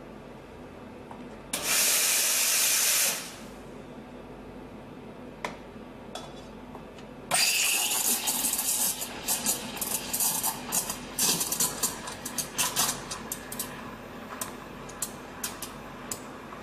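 Schaerer Coffee Art Plus Power Steam wand hissing: first a short, steady blast of steam lasting about a second and a half. About seven seconds in, steam comes on again in a pitcher of milk, hissing with irregular sputtering and crackling as the milk is frothed, thinning out near the end.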